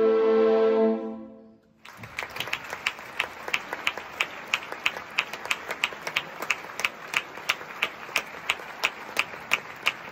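An orchestra's final held chord dies away in the first two seconds. The audience then breaks into applause, with one sharp, regular clap about three times a second standing out above the general clapping.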